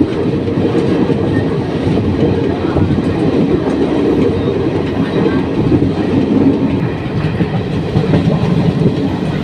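Express passenger train running at speed, heard from an open carriage doorway: a steady, loud rumble of the wheels on the rails.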